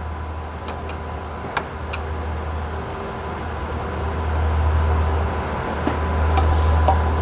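Steady low hum of running machinery, the cooling fans and air handling of broadcast transmitter equipment, with a faint steady whine above it. The hum grows louder about four seconds in. A few light clicks and taps come from hand tools and screws being worked on a power supply's metal casing.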